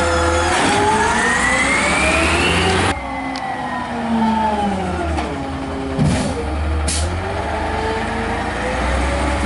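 McNeilus ZR side-loading garbage truck with a natural-gas engine: the engine revs with a steadily rising whine while the automated arm works, then the sound changes suddenly and the truck drives along, its engine pitch falling and then rising again. A brief knock about six seconds in.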